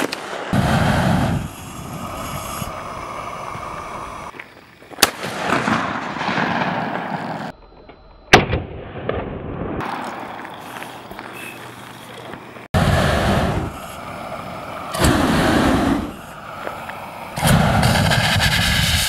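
Single gunshots from an AR-style rifle and a pistol, between several bursts of a backpack flamethrower firing, each a loud, steady rush of flame; the last flame burst starts near the end.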